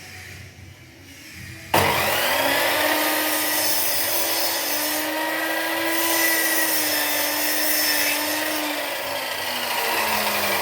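An electric power tool working wood starts abruptly about two seconds in and runs steadily with a hum and a hiss, its pitch sagging near the end.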